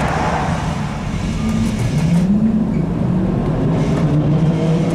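ZiU-682 trolleybus on the move, its traction motor humming over rolling noise. The motor's pitch rises about a second and a half in, dips, then holds steady.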